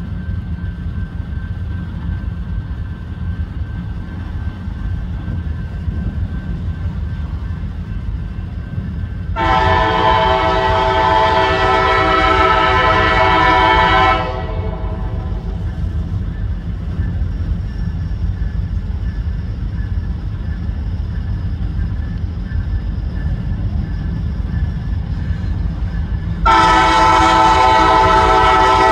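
Norfolk Southern freight locomotive's air horn sounding one long blast of about five seconds about a third of the way in, then a second long blast starting near the end. Each blast is a chord of several tones. Under them runs a steady low rumble from the approaching train.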